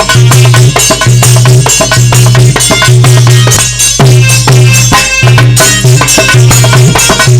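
Instrumental interlude of a Hindi folk song: fast, dense drumming with a rattle over a steady, loud low drone, without singing.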